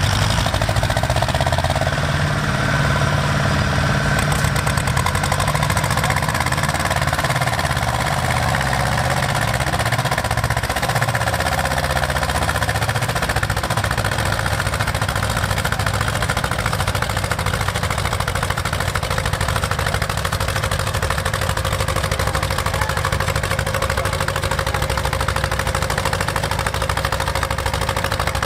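Two small Ursus diesel tractors running hard under load as they pull against each other in a tug-of-war, making a steady engine din. Around the middle the two engine notes beat against each other.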